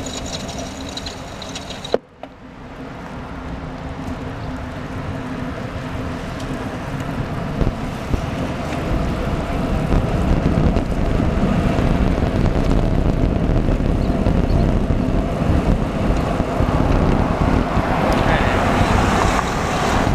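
Wind on the microphone and bicycle tyre noise on wet pavement while riding, growing louder and rumblier as the bike picks up speed, with a sharp click about two seconds in.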